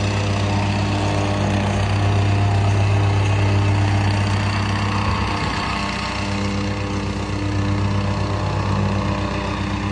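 Gas-engine vibratory plate compactor running steadily, tamping down the gravel base, with a constant low engine drone.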